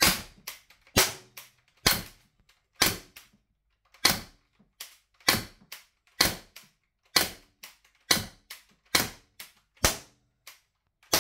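Umarex HDB 68 CO2 blaster (.68 calibre, full-power 16-joule version) firing about a dozen sharp shots roughly one a second, with fainter clicks between the shots.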